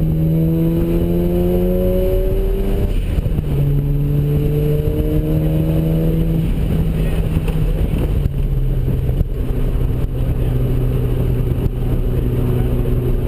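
Mazda RX-7's ported twin-turbo rotary engine pulling hard on track at about 10 psi boost: its pitch climbs for about three seconds, drops at an upshift, climbs again, then settles to a steadier lower drone from about seven seconds in.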